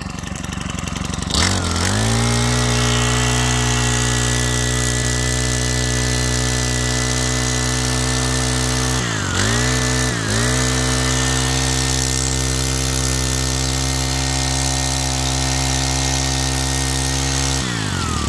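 Robin BH3500 brush cutter's 35cc four-stroke engine catching about a second and a half in, then running steadily at speed, with two brief dips in revs around nine and ten seconds. Near the end its revs fall away.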